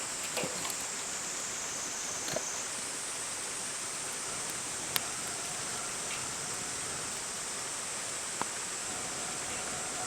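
Wood campfire burning: a steady hiss with a few sharp pops and crackles scattered through it.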